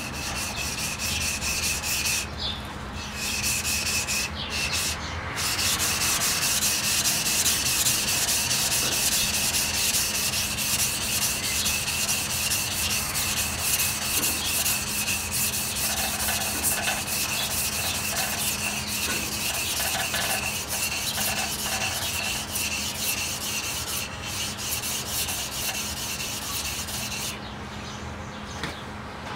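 A steel knife blade being stroked quickly back and forth on a wet sharpening stone, a continuous scratchy grinding as the single bevel of a cheap chisel-ground blade is sharpened. It breaks off briefly twice in the first five seconds and stops about two seconds before the end.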